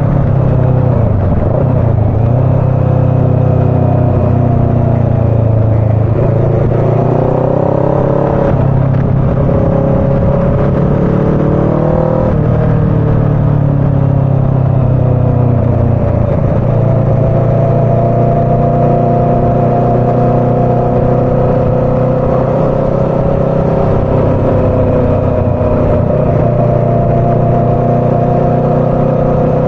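Motorcycle engine running under way as it is ridden, its pitch dipping and climbing several times with throttle changes, over a steady low rush of wind and road noise.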